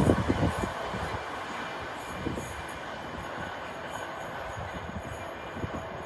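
A train rolling past, its wheels giving a steady rumble with a thin, high wheel squeal over it. There is a loud burst right at the start, and the sound eases off near the end.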